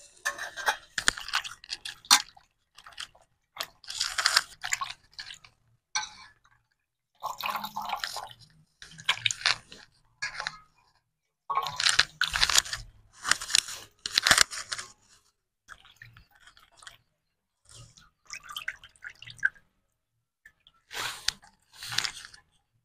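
Raw chicken pieces washed by hand in turmeric water in a steel bowl: irregular bursts of splashing and wet squelching with short pauses between handfuls, and a few sharp clicks.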